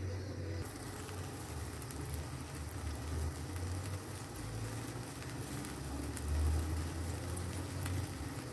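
Spiced water heating in a wok on a stove, nearing the boil: a steady low rumble with a faint hiss and light crackle of forming bubbles.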